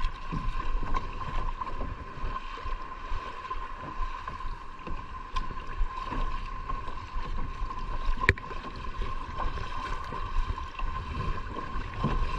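Kayak paddles dipping and splashing in lake water in irregular strokes, over a steady wash of water and wind. A sharper knock comes about eight seconds in.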